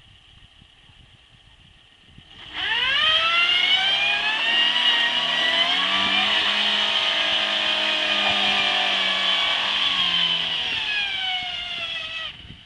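Peugeot car engine revving hard: it comes in suddenly, climbs in pitch over about a second, then holds at high revs before easing off slightly and cutting off abruptly near the end.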